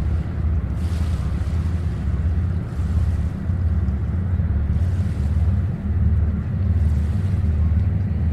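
Distant freight train of tank cars rumbling low and steady across a long lake bridge, mixed with wind buffeting the microphone and a faint wash of small waves.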